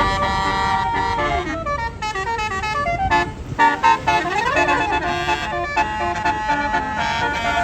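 Basuri telolet musical horn on a tour bus playing a melody: a run of horn notes stepping from pitch to pitch, with a quick rising-and-falling slide about halfway through.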